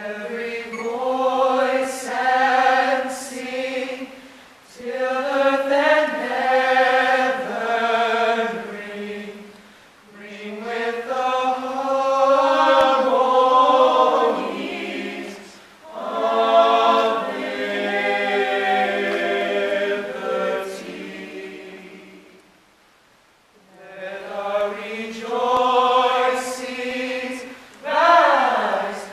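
Small mixed choir of men's and women's voices singing a cappella in long held phrases, separated by short pauses, with a longer pause about three-quarters of the way through.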